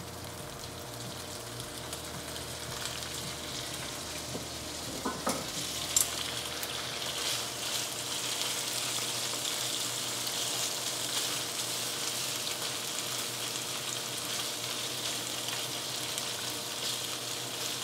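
Salmon fillet pieces sizzling in hot oil in a nonstick frying pan with green onion, ginger and garlic; the sizzle builds over the first several seconds as the fish goes in, then holds steady. A couple of sharp clicks about five to six seconds in.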